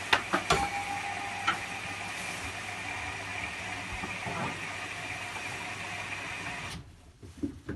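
A household appliance running with a steady hiss and whir, a few sharp clicks in the first second and a half, then cutting off suddenly near the end.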